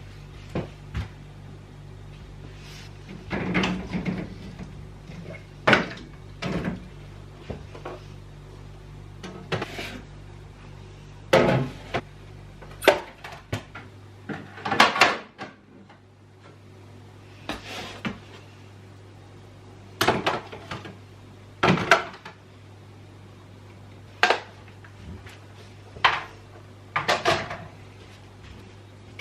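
Containers and food items being handled and set down in a fridge: a string of separate knocks and clatters, a second or two apart, over a steady low hum.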